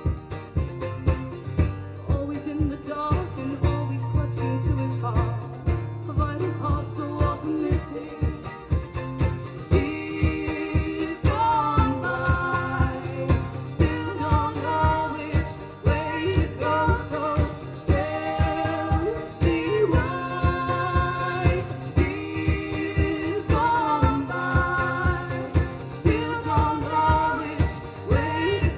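Live band music: a steady, regular strummed beat with long held melody notes sung or played over it.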